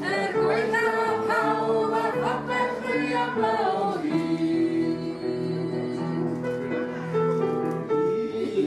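Singing over an instrumental accompaniment of long held chords; the voices fade about four seconds in while the held chords carry on.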